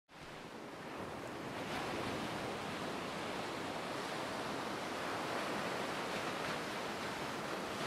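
A steady rushing noise, evenly spread with no tones, fading in at the start and holding level with slight swells.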